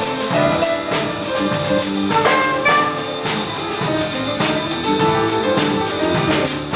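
Instrumental music with brass and drums, with strong beats about once a second.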